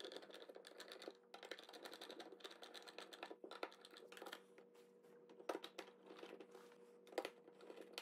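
Faint, irregular small clicks and scrapes of a screwdriver working the mounting screws of an electrical receptacle, with a couple of sharper clicks about five and a half and seven seconds in, over a faint steady hum.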